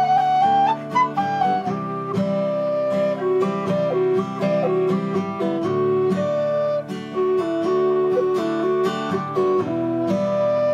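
A whistle and an acoustic guitar playing a Scottish folk tune together. The whistle's melody slides between notes in the first couple of seconds, then the picked and strummed guitar comes to the fore.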